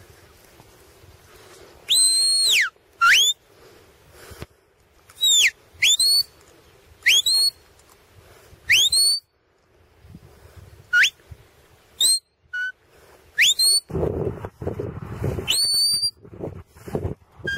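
A shepherd's whistle commands to a working border collie: about ten short, sharp whistle notes. A few fall in pitch and most rise quickly to a high note. Over the last few seconds there is a low rumble of wind noise on the microphone.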